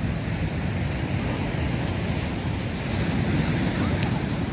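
Sea surf washing steadily onto the shore, with wind rumbling on the microphone.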